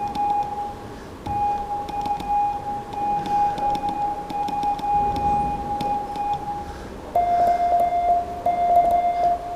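Morse code (CW) tones: a steady beep held for several seconds with a brief break about a second in. About seven seconds in it switches to a slightly lower beep broken into long dashes. A fainter, higher beep keys on and off in dots and dashes, with light clicks throughout.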